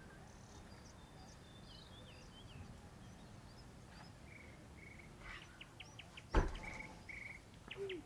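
Small birds chirping and trilling, with short high chirps at first, then buzzy trills and quick runs of short repeated notes. A single sharp knock about six seconds in is the loudest sound.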